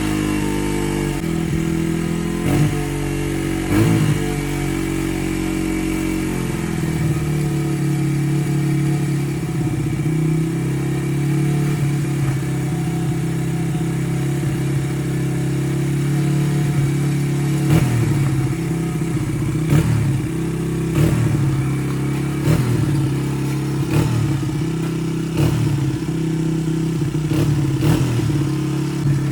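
1999 Honda XR100R's small single-cylinder four-stroke engine running, with repeated short blips of revs that rise and fall, several in quick succession near the end.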